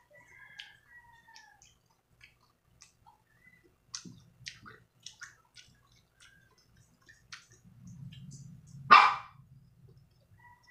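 A dog barks once, loudly, about nine seconds in. Before that come small scattered clicks and smacks of someone eating mango slices.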